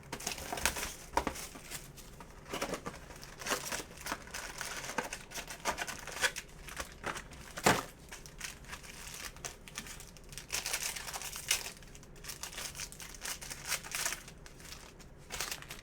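Plastic wrapping and trading card pack wrappers crinkling and tearing as boxes of sports cards are opened by hand, in irregular rustles, with one sharp snap about eight seconds in.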